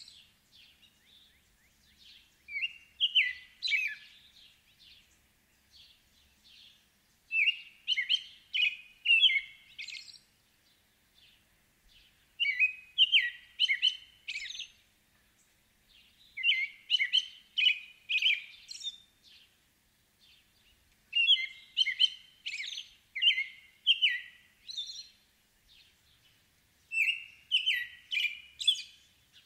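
American robin singing: bouts of short, clear whistled phrases, about six bouts each lasting a couple of seconds with pauses between, and thin high notes mixed in among the phrases.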